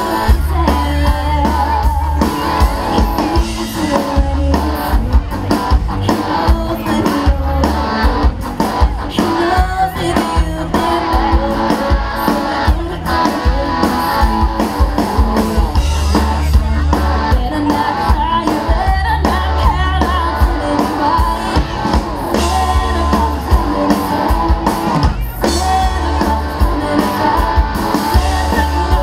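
Live amplified band music: a woman singing into a microphone over electric guitar and drums, with a heavy low bass pulsing in time.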